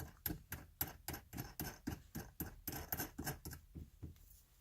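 Weighted shift knob being screwed by hand onto the threaded shift lever: a run of small clicks, about five a second, that stops a little before the end.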